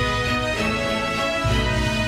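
Background music: an instrumental track with sustained chords and a bass note that changes about every second.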